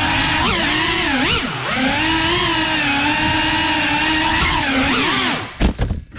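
FPV quadcopter's brushless motors and propellers whining, the pitch dipping and rising several times as the throttle changes. Near the end the whine drops out briefly, with a few low thumps.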